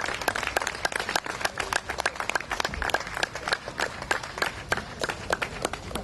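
Audience applauding, with many sharp individual claps standing out over the general clapping.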